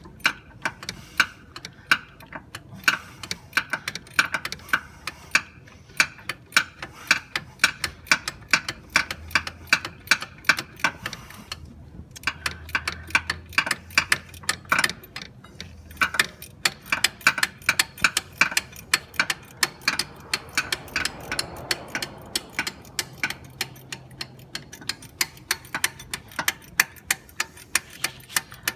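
Ratcheting 13 mm combination wrench clicking rapidly, several clicks a second with short pauses, as it backs off an AC compressor mounting bolt.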